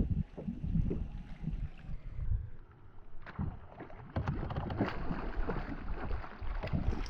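Wind rumbling on the microphone and water lapping and splashing around a small boat, with a run of sharp clicks and splashes starting about three seconds in.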